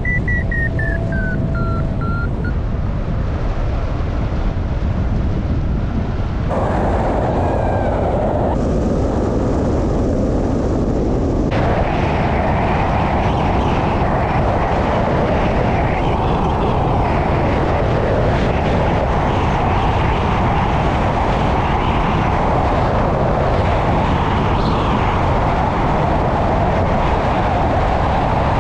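Rushing airflow over a hang glider in flight, heard as loud wind noise on the microphone, with a brief high tone that rises and falls near the start. The rush grows stronger and brighter about six seconds in and again about eleven seconds in, as the glider speeds up in a low, fast pass over a field.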